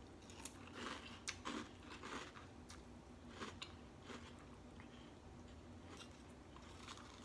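Faint chewing of a mouthful of Jolly Rancher cereal, with irregular short crunches, most of them in the first four seconds.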